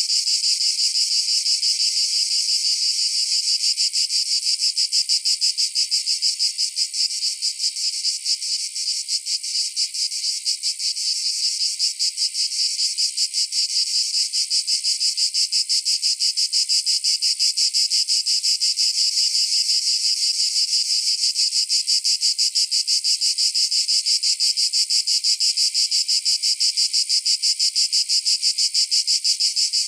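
Cicadas singing: a steady, shrill, high-pitched buzz made of fast, even pulses.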